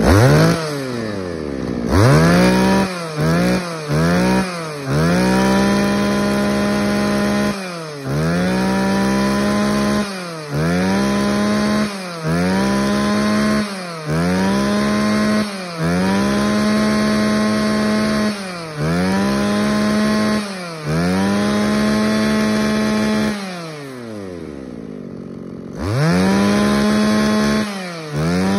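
Mitsubishi TB26 26 cc two-stroke brush cutter engine revved over and over: snapped up to full throttle, held for a second or two, then let fall back to idle, about a dozen times, with a longer idle near the end. Punchy and quick to rev, which the seller puts down to its bigger 34 mm piston.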